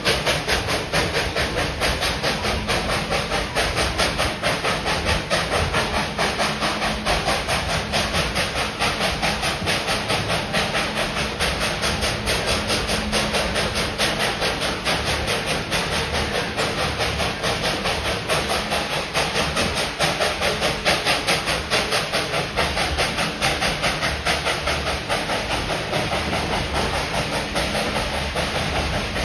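Narrow-gauge steam locomotive #190 working under way, its exhaust chuffing in a steady, even rhythm over a constant hiss.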